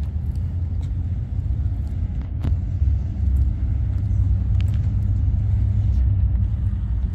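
Low, steady rumble of a car engine idling.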